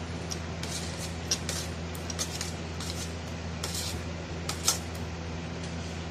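Paneer cubes being tipped from a plate into a metal kadai of thick masala, with irregular sharp clinks and scrapes of the plate and spatula against the pan over a steady low hum.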